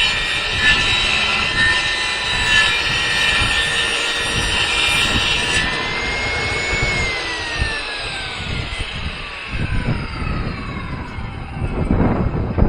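Kobalt table saw running at full speed, then switched off about six seconds in, its whine falling steadily in pitch as the motor and blade spin down. Wind buffets the microphone near the end.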